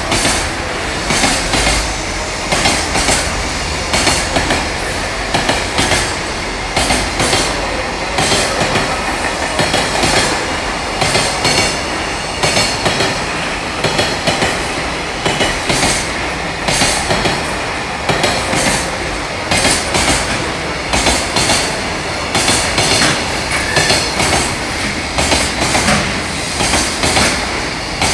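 Container wagons of a long freight train passing at speed, their wheels beating a steady, repeating clickety-clack over the rail joints.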